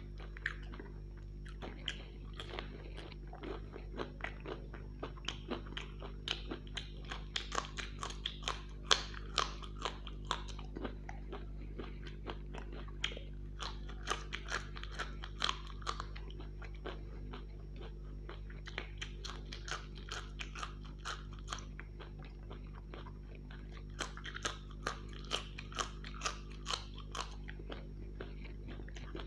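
Close-up chewing and crunching of crisp fried pakora and raw green chillies: many sharp crunchy bites in clusters, with a softer spell of chewing past the middle. A steady low hum sits underneath.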